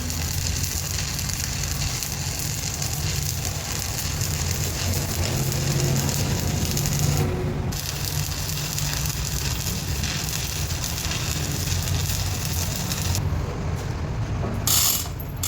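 Metalworking machinery running: a steady crackling hiss over a low mechanical hum.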